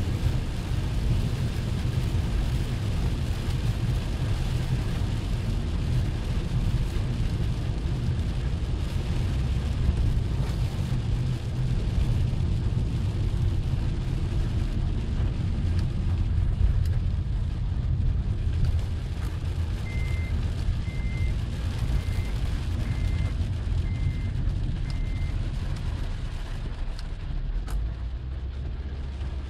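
Inside a car driving on a rain-soaked road: a steady low rumble of engine and tyres with a hiss of wet-road noise. About two-thirds of the way through, six short high beeps sound about a second apart, and the rumble drops a little near the end.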